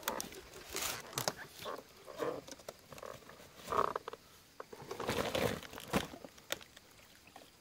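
Rustling and crinkling of a woven plastic fertilizer sack being handled, with scattered small clicks and knocks.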